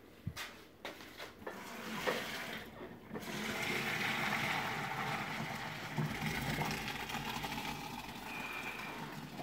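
A few knocks, then a large pot of boiling pasta water being poured out into a colander in a stainless-steel sink: a loud, steady gush of water draining away.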